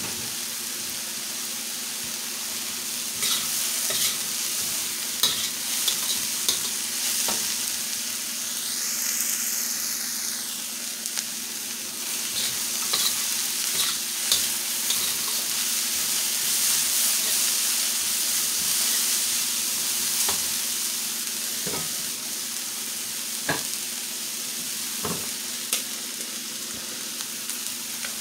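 Chopped cabbage and onion sizzling in a hot steel wok, stir-fried with a metal wok spatula that scrapes and clicks against the pan every so often.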